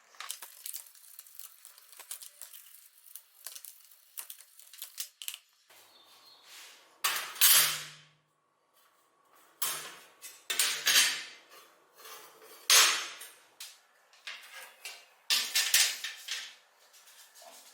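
Small hard objects clattering and clinking against each other. Light scraping and ticking comes first, then about five loud bursts of clatter in the second half.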